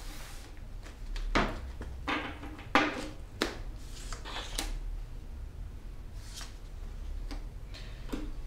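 Tarot cards being handled and laid down on a table: a series of short slaps and rustles, most of them in the first five seconds and a few fainter ones near the end.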